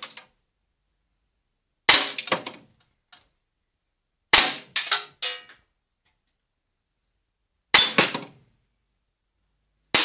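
Umarex CO2 Makarov air pistol firing .177 shots at a steel knock-down target box: four sharp shots about two to three seconds apart, the last at the very end. Each shot is followed by a quick metallic clatter as the shot strikes and the steel plates flip down.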